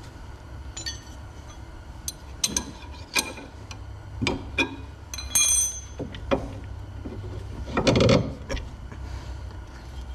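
Metal tools and steel front-suspension parts clinking and knocking as the steering knuckle and radius rod are fitted back together by hand. There is a short ringing clink about five seconds in and a heavier knock near eight seconds.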